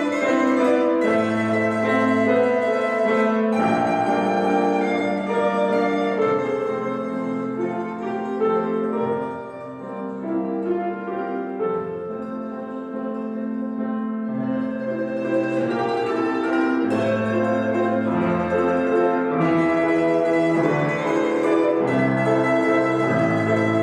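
A plucked string instrument playing a slow, wistful melody with piano accompaniment; the playing drops quieter in the middle and swells again.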